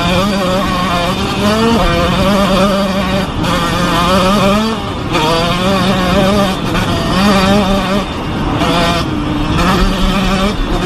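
Dirt bike engine pulling hard at speed, its pitch climbing and dropping back several times as it shifts up through the gears, with wind rush over it.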